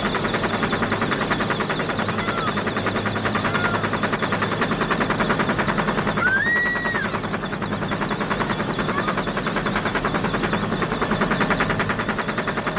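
Helicopter rotor chopping in a rapid, even thud, steady throughout. A brief high tone rises and holds about halfway through.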